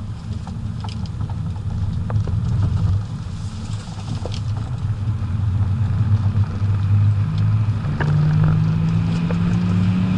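BMW 535d's twin-turbo straight-six diesel pulling the car at speed. Its drone dips briefly about three seconds in, then builds, with the pitch rising steadily over the last few seconds as the revs climb.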